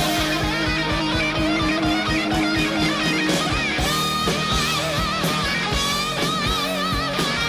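Rock music with electric guitar lines and a steady drum beat.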